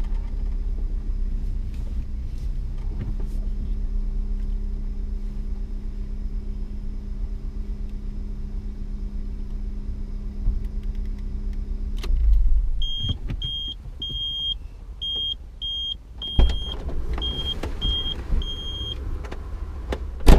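Car engine idling steadily, heard from inside the cabin; it cuts off about twelve seconds in. A run of about ten short high beeps follows, with a few thumps and a loud knock at the very end.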